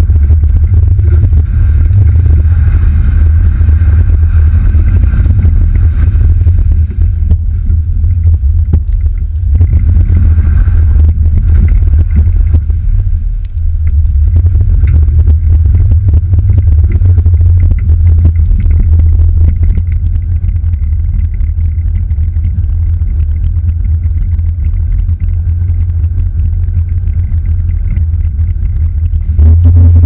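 Chevrolet Silverado pickup driving on a snow-covered road: a loud, steady low rumble of the truck under way, dipping briefly twice.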